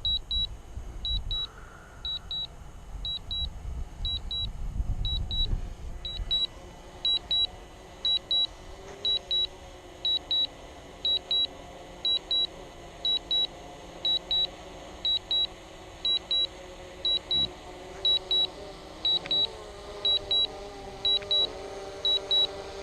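Drone remote controller beeping in quick pairs about once a second, the alert it sounds while the Mavic Pro Platinum returns home on low battery. Wind rumbles on the microphone at first, and from about eight seconds in the drone's propeller hum grows louder as it descends.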